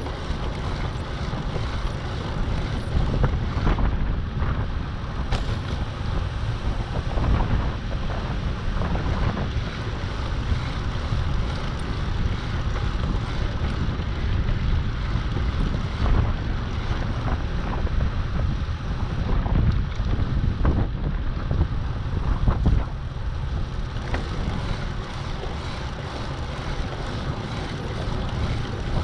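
Wind buffeting the microphone: a continuous low rumble that swells and dips with the gusts.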